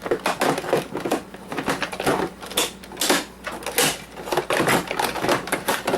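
Coffee maker's plastic housing and parts being pried and handled during disassembly: a dense, irregular run of clicks, knocks and rattles.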